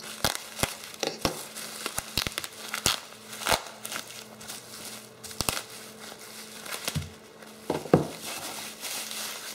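Bubble wrap crinkling and crackling as it is pulled off a small aluminium bracket by hand, with many sharp crackles. A knock about eight seconds in as the metal plate is set down on the wooden bench.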